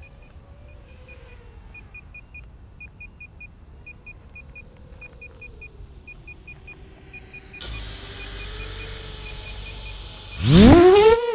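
A quadcopter drone on the ground emits short high beeps in irregular groups, a beeping the pilot takes to mean a firmware upgrade is running. About ten seconds in, its electric motors and propellers spin up with a loud whine that rises, dips and rises again.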